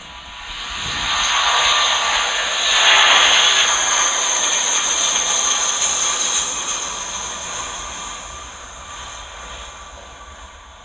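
Airbus A330-300's twin Rolls-Royce Trent 700 jet engines at takeoff power as it climbs out overhead. The jet roar swells over the first couple of seconds, stays loud, then fades as the plane climbs away.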